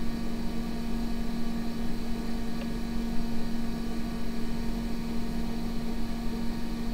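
Macintosh SE/30 running with its original cooling fan: a steady droning motor hum, one strong low tone with several fainter steady tones above it, over airflow noise.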